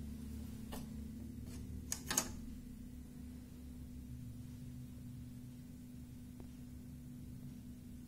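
Steady low hum of room tone, with a few sharp clicks, the loudest cluster about two seconds in.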